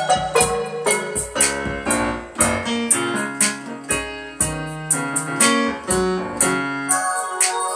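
Instrumental gospel music led by piano or electric keyboard chords over a steady beat.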